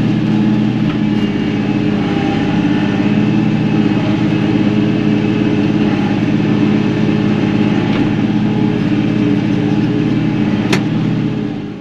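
Kioti NS6010 compact tractor's diesel engine running steadily, with one sharp click near the end before the sound fades out.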